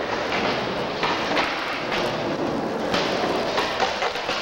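Skateboard wheels rolling over concrete with a steady rumble, clacking over cracks and joints several times.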